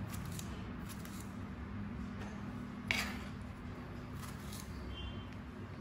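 Kitchen knife cutting tomatoes on a plastic cutting board: a few faint taps of the blade on the board, the clearest about three seconds in, over a steady low hum.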